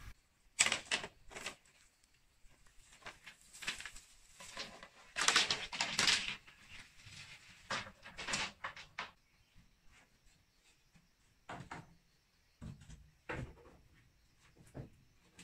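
Irregular clacks and knocks of hard objects being handled, in uneven clusters with short pauses between them.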